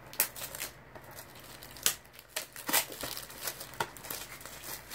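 Plastic Blu-ray case being handled and opened: crinkling plastic and a handful of sharp clicks, the loudest just under two seconds in.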